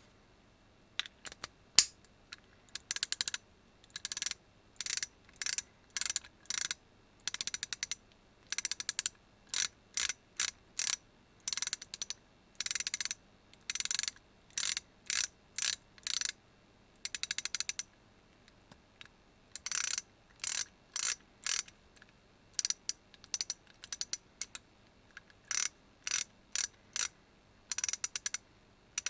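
KTC BR3 3/8-inch drive, 24-tooth ratchet handle clicking as it is swung back and forth, each swing a quick run of clicks, about one a second, with a pause of about two seconds a little past the middle.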